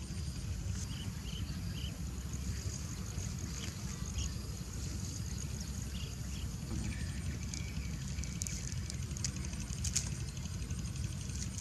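Outdoor field ambience: a steady low rumble of wind on the microphone and a faint high insect trill, with a few short chirps and scattered light clicks.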